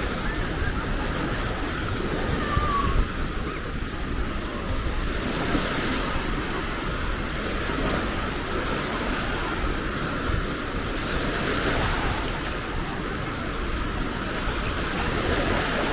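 Small sea waves breaking and washing up the shoreline in a steady surf, with wind rumbling on the microphone.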